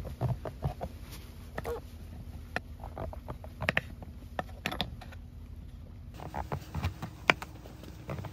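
Kitchen knife slicing king oyster mushrooms on a cutting board: irregular knocks and clicks as the blade goes through and strikes the board.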